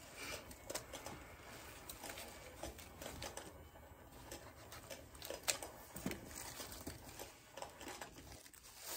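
Faint crinkling and rustling of white protective wrapping as a black leather bag strap is unwrapped, with a few light clicks.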